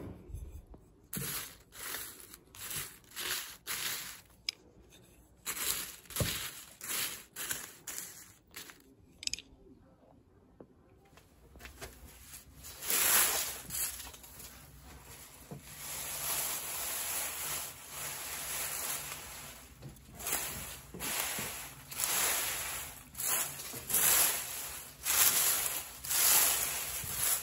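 Drying tea leaves rustling and crinkling as hands spread and turn them on a cloth, in a string of short, irregular strokes with a brief pause near the middle.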